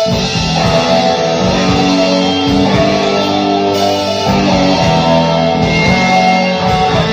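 Live rock band playing loudly, with electric guitar chords over steady drum thumps and no vocals.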